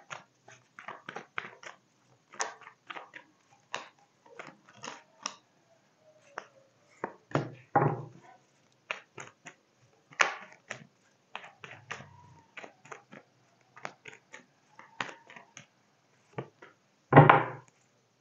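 Tarot cards being shuffled by hand: a quick, irregular run of short, crisp card slaps and riffles, with a couple of louder thuds about eight seconds in and near the end.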